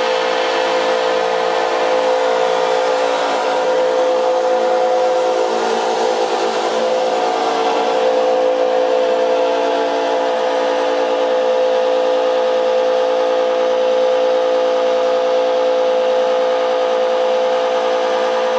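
Electroacoustic sound sculpture of plastic pipe and a rubber membrane worked by servo-driven pinch rollers, sounding a loud, steady drone: one held mid-range pitch with many overtones and a slight wavering buzz. Some of the higher tones fade about eight seconds in.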